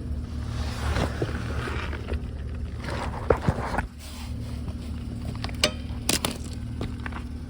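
Shuffling and scattered knocks and clicks as someone moves under a car and handles parts. A steady low machinery hum runs underneath and eases a little partway through.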